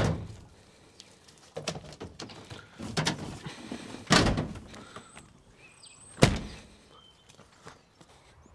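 Pickup truck's tailgate and hardtop canopy rear door being shut: several dull thuds and knocks, then one sharp slam about six seconds in.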